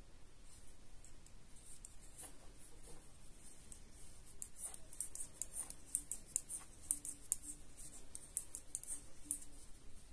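Knitting needles clicking as stitches are knitted: light, quick, irregular clicks, coming thickest from about halfway in.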